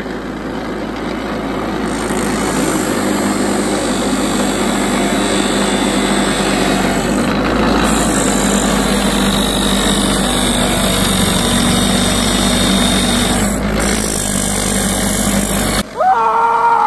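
Bench grinder running steadily while a composite hydrofoil tail wing is ground down against its wheel to shorten and taper it. Near the end the grinding stops and a rooster crows.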